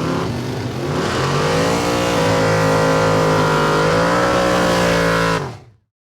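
A car's V8-type engine is revved hard during a burnout. It climbs over the first two seconds, then is held at high revs under a steady hiss of spinning tyres, and cuts off suddenly about five and a half seconds in.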